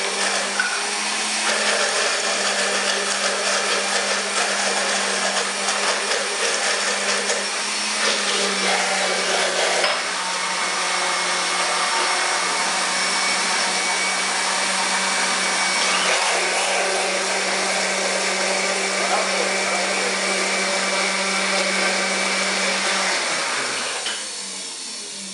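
Countertop blender motor running steadily, pureeing chopped sweet potato with water into a thick liquid. It is switched off near the end.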